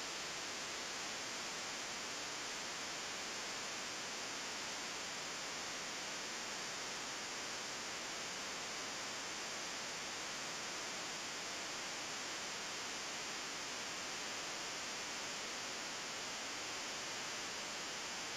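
Steady, even hiss of recording noise, with no other sound.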